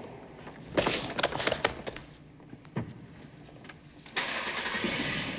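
A few sharp knocks and cracks about a second in, then from about four seconds in a loud, steady electric crackling hiss: a car's electric-shock anti-theft system zapping someone who is tampering with the car.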